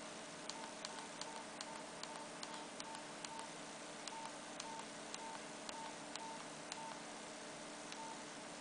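Nokia 8600 Luna's keypad tones: a series of short, identical beeps, each with a click, about two a second as the navigation key is pressed through the phone's menus. The beeps stop about seven seconds in, and one more comes near the end.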